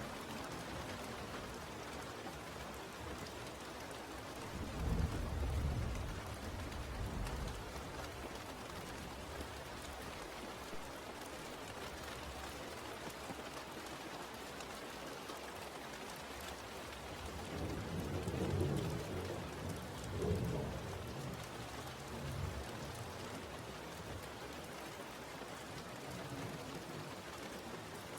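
Steady rain falling, with low rumbles of thunder about five seconds in and again around eighteen to twenty-one seconds.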